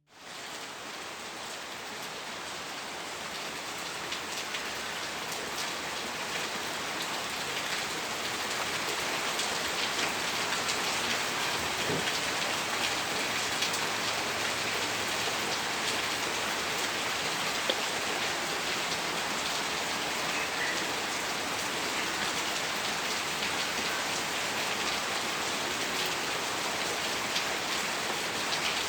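Steady rain falling, a dense hiss full of small separate drop impacts, fading in over the first several seconds and then holding even.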